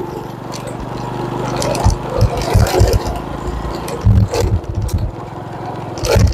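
Motorcycle engine running steadily while riding over a rough, broken road, with low thumps and a few sharp knocks and rattles from the bumps.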